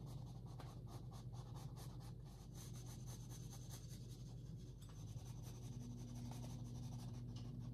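Palette knife scraping across a wet oil-painted canvas: a faint, repeated scratchy rasp as the blade is pulled flat across the surface, over a steady low hum.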